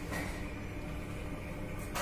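A steady low hum, with a brief hissing swish at the start and another near the end.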